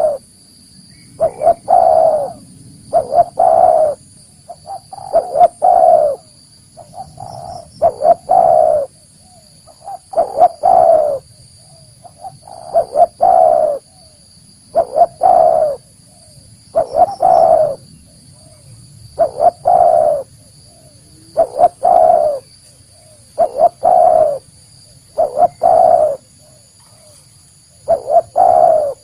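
Spotted dove cooing over and over: each phrase is a short note or two followed by a longer coo, repeated about every two seconds. Faint steady high-pitched tones run underneath.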